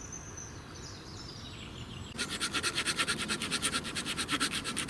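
Small hand saw cutting through a resin-soaked pine branch stub (fatwood), starting about two seconds in with quick, even back-and-forth rasping strokes, several a second. Before it, only faint woodland ambience with a brief bird note.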